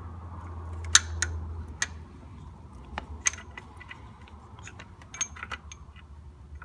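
Scattered light metallic clicks and clinks as a BMW S54 engine's intake cam sprocket and timing chain are worked by hand, over a low steady hum.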